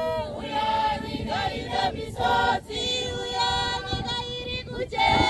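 A congregation singing together in chorus, many voices holding drawn-out notes.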